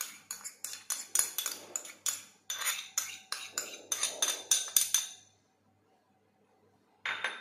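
A steel spoon knocking and scraping thick yogurt out of a small ceramic bowl, a quick run of sharp clinks, roughly three or four a second, that stops about five seconds in. One more brief clatter follows near the end.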